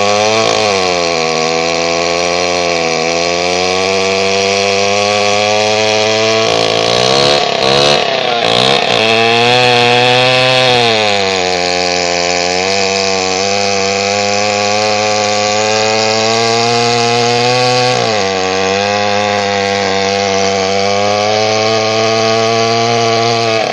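Chainsaw running steadily and cutting through wood, its engine pitch sagging several times as the chain bites in under load and then rising again.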